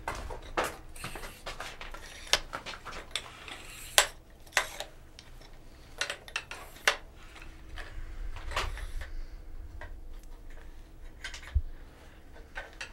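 Equipment being handled and set down: a string of irregular sharp knocks and clicks, the loudest about four seconds in, over a faint steady hum.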